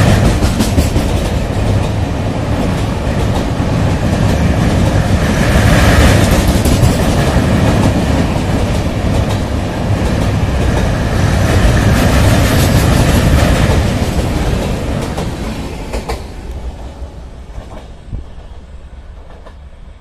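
Passenger train coaches running past close by on a steel truss railway bridge: a loud rumble with wheels clattering over the rail joints, fading away over the last few seconds.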